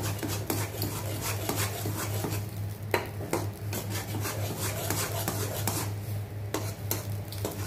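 A flat metal spatula is stirring and scraping around a metal kadai of melting, foaming butter, the first stage of cooking it down to ghee. It makes a run of quick scrapes and light knocks, with one sharper knock about three seconds in, over a steady low hum.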